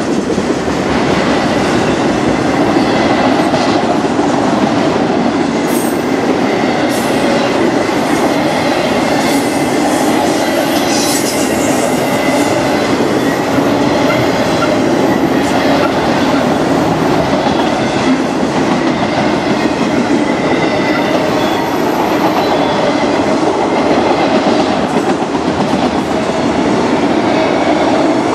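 Autorack freight cars of a manifest train rolling past close by: a steady, loud rumble of steel wheels on rail, with thin high wheel squeal that comes and goes.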